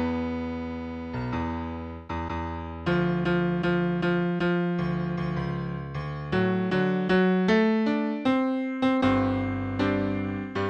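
Slow piano music: single notes and chords struck over held bass notes, each dying away, with quicker notes from about the middle on.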